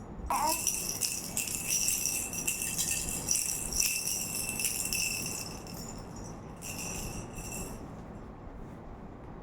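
A jingling baby rattle shaken for about five seconds, then shaken again briefly about a second later. A short squeak comes just as the shaking starts.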